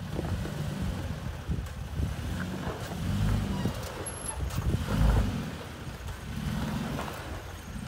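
Third-generation Toyota Tacoma's engine running at low revs as the truck crawls over rocks, swelling with throttle several times, loudest about five seconds in.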